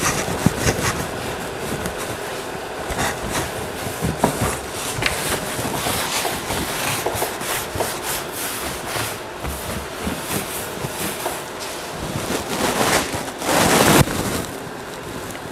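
A cloth rag scrubbing and wiping across the sanded sheet-metal top of an antique trunk: continuous rough rubbing with small scrapes and knocks. A brief louder burst of rubbing comes near the end.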